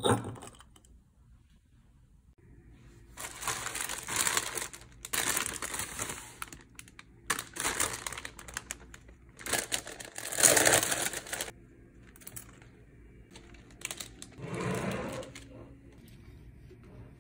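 Clear plastic flower sleeve crinkling in a run of loud bursts as a bunch of tulips is unwrapped, then a softer, duller rustle near the end as the stems are handled.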